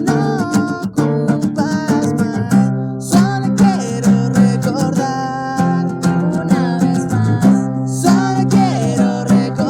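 Music: strummed acoustic guitar, with a voice singing over it at times.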